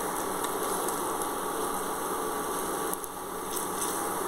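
Masoor dal fritters shallow-frying in hot oil in a pan, a steady sizzle with the second side cooking.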